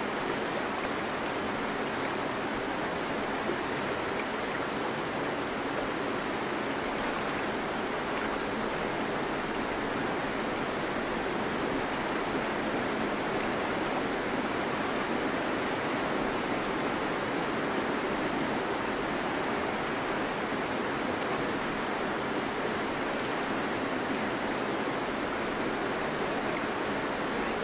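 Steady rush of river water running over a rocky riffle.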